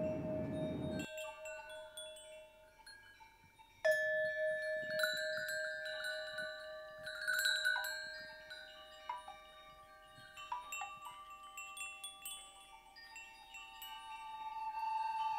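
Chime soundtrack: bell-like notes struck and left ringing, overlapping one another, with a fresh cluster of strikes about four seconds in. A low rushing sound under the first notes cuts off about a second in.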